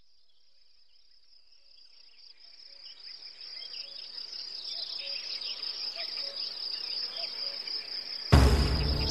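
Steady high-pitched insect chirping that fades in over several seconds, with scattered faint bird-like chirps. Near the end, loud music with a heavy bass starts suddenly.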